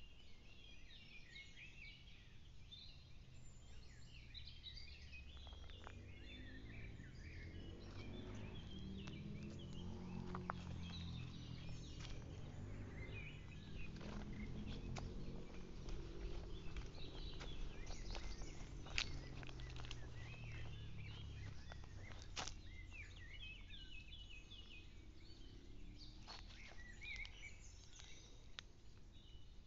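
Several birds chirping and singing in woodland, over footsteps on a dry, leaf-strewn dirt trail. A low rumble swells through the middle and fades away again.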